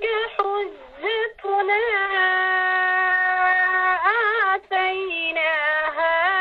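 A woman chanting Quranic verses in Arabic in the melodic tajweed style, holding long notes with wavering ornaments. There is a short breath break about three-quarters of the way through.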